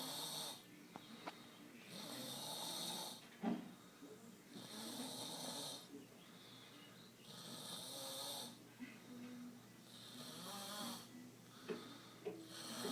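A man snoring loudly in his sleep: a harsh snore about every two and a half seconds, five in all, with softer low sounds in between. A brief sharp sound about three and a half seconds in.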